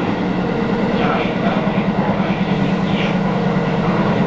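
Tobu 10000-series electric train car running at speed, heard from inside, with a fast, continuous repeating knock from flat-spotted wheels striking the rail on every turn: worn wheel flats.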